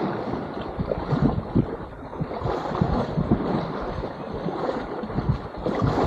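Sea water sloshing and splashing close to the microphone, in irregular surges, with wind buffeting the microphone.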